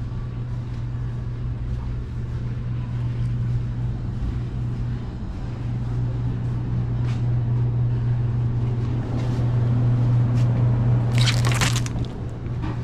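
Steady low hum of a car running, heard from inside, slowly growing louder, with a short burst of crackling about eleven seconds in.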